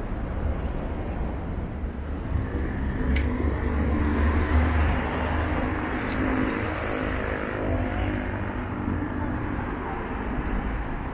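Street traffic with a motor vehicle passing close by: its engine and tyre noise swell about four seconds in and fade again a few seconds later.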